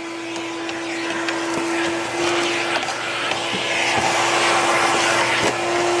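Shop vacuum running with a steady hum and rush of air as its nozzle sucks up rat droppings from an attic floor, with small clicks of droppings rattling into the nozzle. The rush grows a little louder after a second or two.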